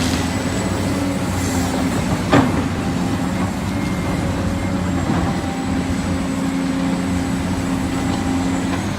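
Diesel engine of heavy construction machinery running steadily, with a single sharp metallic clank about two and a half seconds in.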